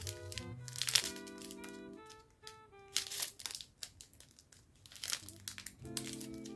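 Background music of held, chord-like notes, with a small plastic jewelry bag crinkling in the hands a few times as it is opened.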